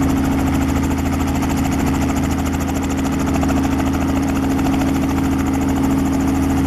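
Robinson R44 helicopter, with its six-cylinder Lycoming piston engine, running on the ground with its main rotor turning. The sound is a loud, even hum that stays at one pitch throughout.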